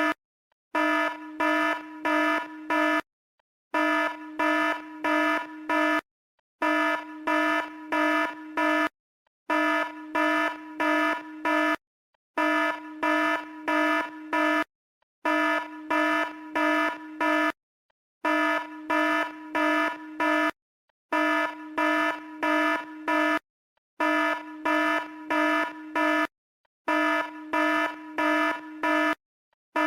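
Red-alert alarm: a buzzing tone of steady pitch, sounding in groups of four quick pulses that repeat about every three seconds with a short silence between groups.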